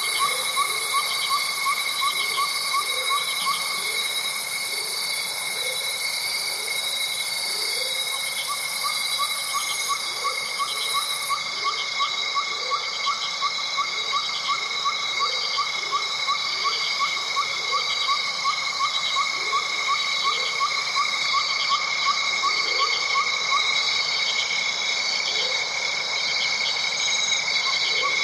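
Night-time nature ambience: a steady chorus of insects trilling at several high pitches, with a regular fast chirping about three times a second that pauses briefly and lower short calls repeating through it.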